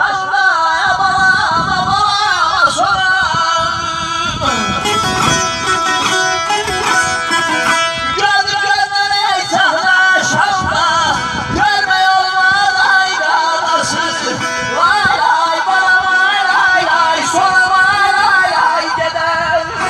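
Azerbaijani ashiq saz played solo, a steady run of quickly plucked notes in a folk melody.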